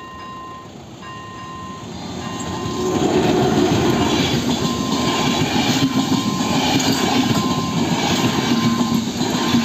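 A level-crossing warning bell dings about once a second as a passenger train approaches. From about three seconds in the train passes close by, its wheels rumbling and clacking over the rail joints, with the bell still ringing under the noise.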